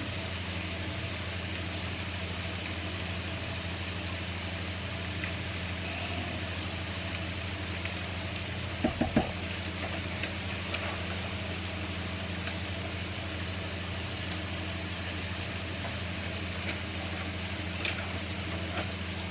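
Prawns searing in hot oil in a pan, a steady frying sizzle over a low steady hum. A quick run of three or four clinks about halfway through.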